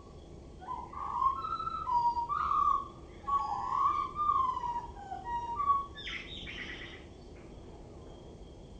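Male common blackbird singing: a run of low, fluting whistled phrases for about five seconds, ending in a brief higher, scratchy twitter.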